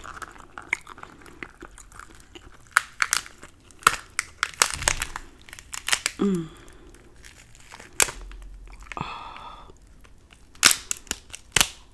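Cooked lobster tail shell being cracked and pulled apart by hand, giving a scattered series of sharp cracks and crackles.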